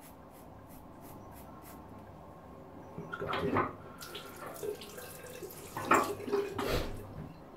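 Bathroom tap running into a sink with irregular splashing, starting about three seconds in and loudest about six seconds in.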